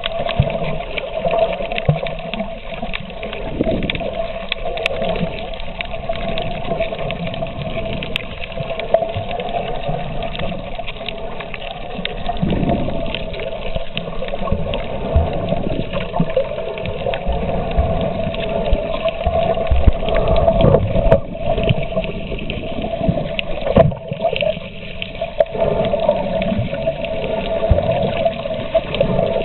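Underwater recording: muffled water noise with irregular low rumbles and knocks, over a steady hum that runs throughout.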